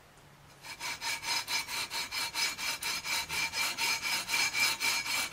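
320-grit sandpaper on a long aluminium levelling beam rubbed back and forth over the EVO gold fret wire of a guitar neck, in quick even strokes about four a second, starting about half a second in. This is fret levelling, with the beam's own weight doing the work and no added pressure.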